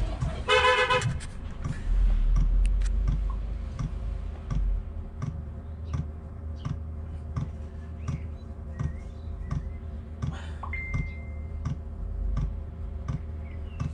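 Chinese 5 kW diesel heater start-up: the fuel dosing pump ticks evenly about twice a second over the steady low hum of the heater running. A brief beep sounds about half a second in.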